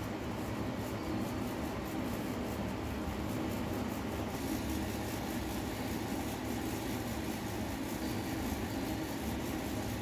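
A steady low mechanical hum with hiss, unchanging throughout, with no distinct events.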